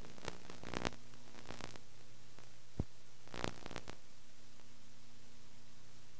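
Analog videotape playback noise: a steady hiss with a low mains hum, broken by scattered crackles and clicks in the first second, a sharp click near 3 s and another burst of crackle about half a second later.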